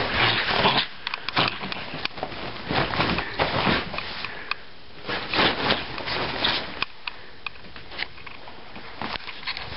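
A Jack Russell terrier rubbing and burrowing in a duvet after a bath: bedding rustling in irregular bursts, with snuffling sniffs.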